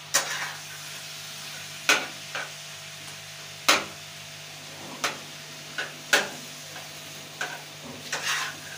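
Metal spatula striking and scraping a wide flat griddle pan, sharp clacks roughly once a second at an irregular pace, as chicken and tomatoes are turned and mixed. Under the clacks runs a steady sizzle of the food frying.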